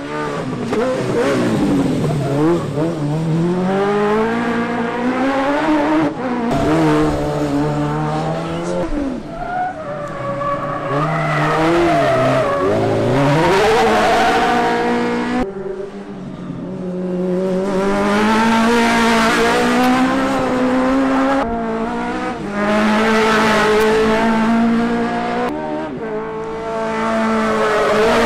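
Race car engine revving hard around a tight circuit, its pitch climbing under acceleration and falling sharply as the driver lifts and brakes for corners, over and over. The sound changes abruptly a few times as one pass gives way to another.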